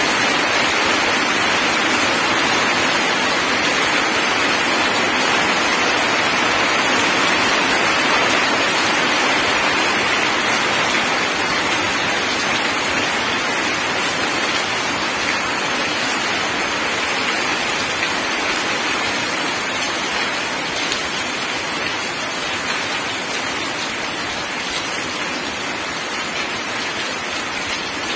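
Heavy rain falling on wet gravel and puddles: a steady, dense hiss of splashing drops, easing slightly over the second half.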